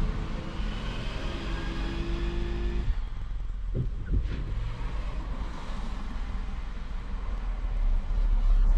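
Motor vehicle running on the road, heard from on board. Its engine holds a steady pitch for the first three seconds, then gives way to a low road rumble, with a couple of brief knocks about four seconds in.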